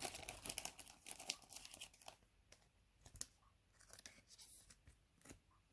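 Faint rustling and light clicks of Bowman baseball cards being handled and slid off a pack stack, scattered soft ticks and brushes of card stock.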